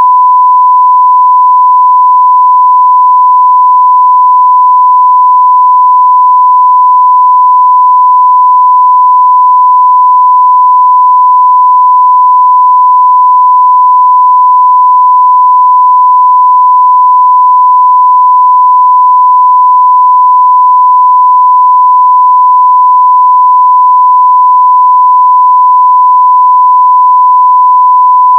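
Continuous 1 kHz sine-wave audio test tone at 0 dBFS: a single pure, steady, very loud pitch that never changes.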